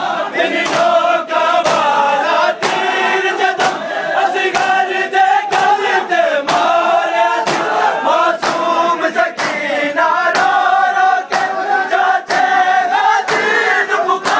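Shia matam: a crowd of men beating their chests with open hands in unison, sharp slaps about two a second, with men's voices chanting together in time over the strikes.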